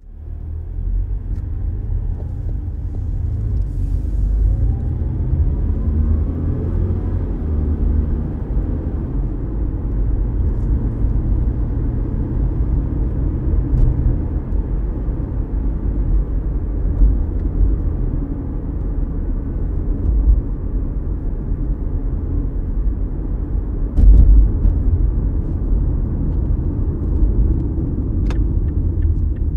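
Mazda CX-5 small SUV driving on a surface street, heard from inside the cabin: a steady low rumble of engine and road noise, with a sharp bump about 24 seconds in.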